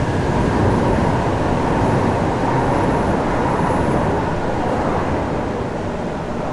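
Light-rail train pulling out of an elevated station, a loud rumbling run with a faint steady whine, easing off after about four seconds as it leaves.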